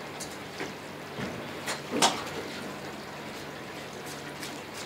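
Solar-powered DC ceiling fan running, a steady low hum with faint air noise. A few short sharp knocks break in, the loudest about two seconds in.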